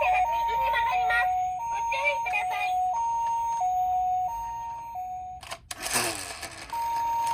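Toy ambulance's electronic two-tone "pee-po" siren, alternating a higher and a lower tone about every two-thirds of a second. It stops with a sharp click about five and a half seconds in, a burst of noise follows, and the siren starts again near the end.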